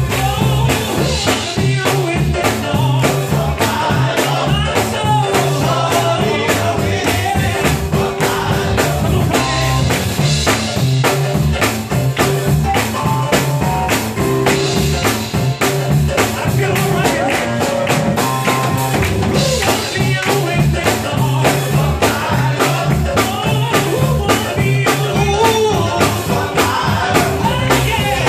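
Live gospel music: a male vocal group singing into microphones over a band with drum kit and a steady low bass line.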